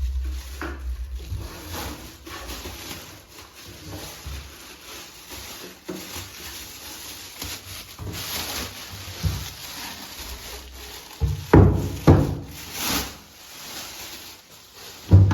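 Unboxing handling noise: packaging and cables rustling and rubbing, with a few sharp knocks from parts being put down, loudest about twelve seconds in and near the end.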